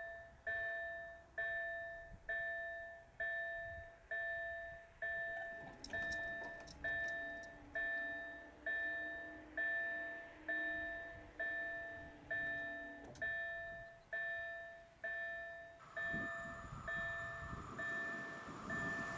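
Level crossing warning bell striking steadily, a little more than once a second, each two-tone ring dying away before the next. Near the end the noise of an approaching train begins to rise under it.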